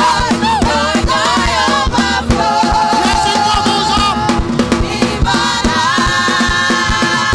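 A live gospel praise song sung by a worship team of several singers on microphones, backed by drums. The voices hold long notes around the middle and again near the end.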